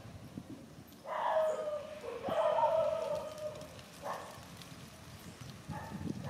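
Monkey whimpering cries: a series of high, whining calls about a second long each, beginning about a second in, with a shorter one later and another starting near the end.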